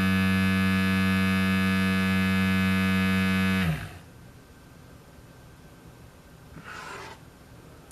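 GLAKER cordless hair clipper running with a steady electric buzz, then switched off about three and a half seconds in, the buzz dropping in pitch as the blade winds down. A brief soft rustle of handling follows near the end.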